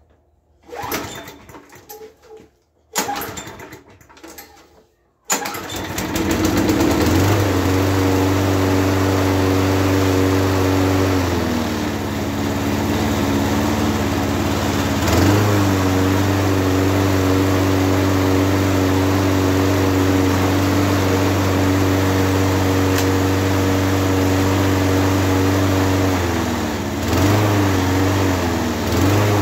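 Toro GTS XL push mower's engine being pull-started just after an oil change: two rough pulls on the starter rope, then it catches about five seconds in and runs steadily, its speed dipping and recovering a couple of times.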